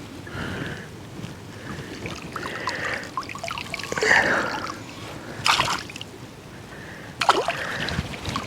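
Splashing and sloshing in shallow creek water while a hooked bass tangled in weeds is being freed. Louder splashes come about four, five and a half and seven seconds in.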